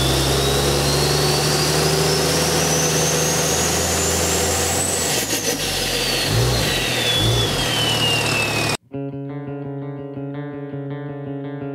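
Channel-intro sound effect: a dense noisy rumble under a whistling tone that rises for about five seconds and then falls away. It cuts off suddenly about nine seconds in, and electric guitar music begins.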